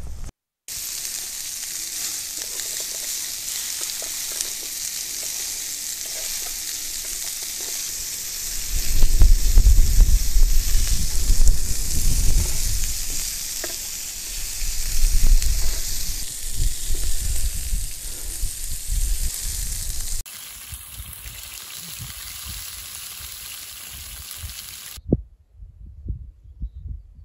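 Meat sizzling on a grill plate over a wood campfire, a steady high frying hiss. Low rumbling comes and goes through the middle and is the loudest part.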